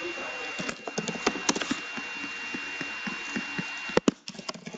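Typing and clicking on a laptop keyboard: a run of quick, irregular key clicks, with two sharper knocks about four seconds in. A faint steady high whine runs underneath.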